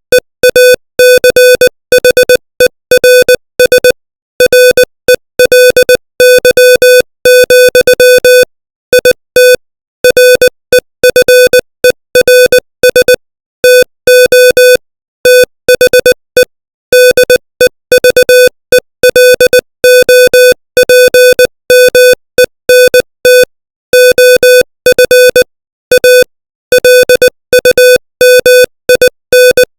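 Morse code sent at 20 words per minute: a loud single-pitch tone keyed rapidly on and off in short dots and longer dashes, with brief gaps between letters and words.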